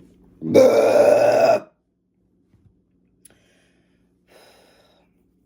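A woman's single loud belch, about a second long, brought up by carbonated soda.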